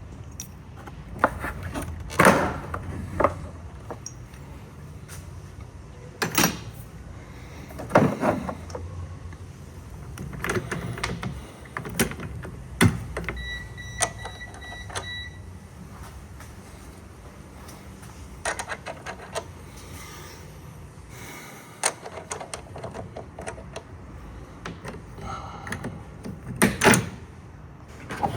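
Scattered metallic knocks, clicks and clatter of hand tools being picked up and used, most likely wrenches and sockets on the car battery's fittings. A short steady high beep or squeak lasts about two seconds near the middle.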